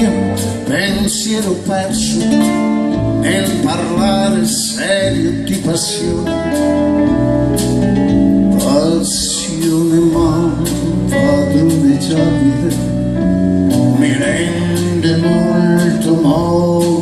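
A live band playing a song: a man singing over guitar, double bass and drums.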